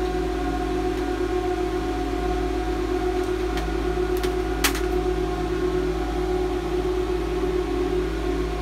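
Cooling fans of several running AntMiner S9 Bitcoin miners, a loud steady whir with a constant hum. A few sharp clicks sound about midway.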